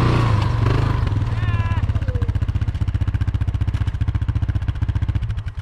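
Can-Am Renegade 800 ATV's V-twin engine running, dropping to an even, pulsing idle about two seconds in, then switched off near the end as the quad is parked.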